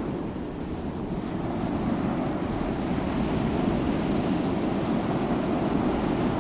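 Sea waves washing in as a steady, low rush of surf, with no single wave break standing out.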